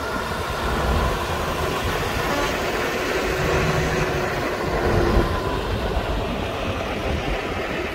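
A line of farm tractors driving past, their diesel engines running with a steady rumble that swells as each one comes close, about a second in and again about five seconds in.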